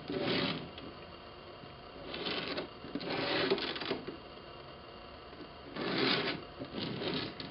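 A cardboard figure box with a thin plastic outer sleeve being turned and handled: several short rubbing and scraping noises with pauses between them.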